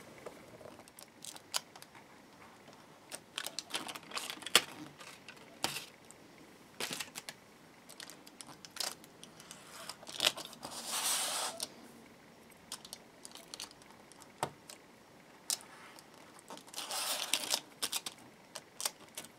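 Scalpel blade trimming excess copper shielding tape from the edge of a Stratocaster pickguard: scattered sharp clicks and ticks of the blade, with crinkling of the copper foil in two stretches of about a second, around halfway and near the end.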